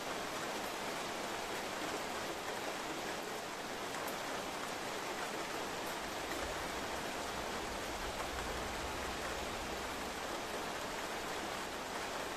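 Heavy rain falling steadily, heard from indoors as an even hiss. About halfway through, a faint low rumble of distant thunder swells and fades.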